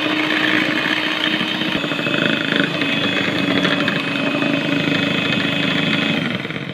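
Electric hand mixer running steadily, its twin wire beaters whisking egg whites and sugar into foam in a bowl; the motor is switched off and begins to wind down near the end.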